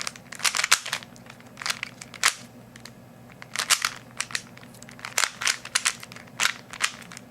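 Rubik's Cube being turned by hand: quick clicking and clacking of its plastic layers as they are twisted, in bursts of several turns with short pauses between.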